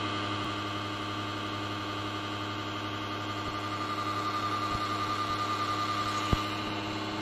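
Steady machine hum holding several fixed tones, with a single sharp click about six seconds in.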